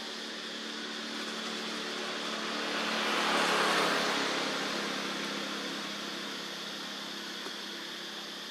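A vehicle passing by on a nearby road, its noise swelling to a peak about three and a half seconds in and then fading away, over a steady low hum.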